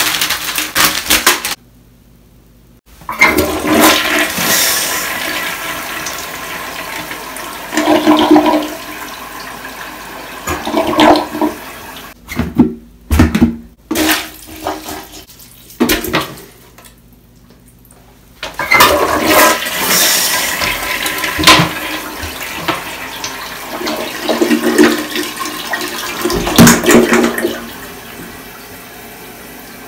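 Toilet flushing twice, its bowl clogged with potato chips, water rushing and gurgling through the soggy mass. Between the flushes come several wet sloshing strokes of a cup plunger working the clog. The second flush carries the chips down and clears the bowl.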